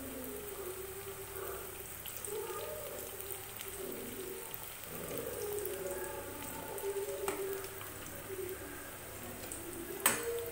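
Nimki pastries deep-frying slowly in oil on a low flame, a steady fine crackle of small pops as a slotted steel spoon turns them. A single sharp metal clink comes near the end, loudest of all.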